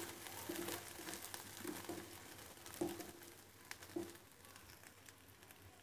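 Wooden spatula stirring green peas in a non-stick frying pan: a few soft knocks against the pan about once a second, over a light crackle of the peas roasting in a little oil. It fades near the end.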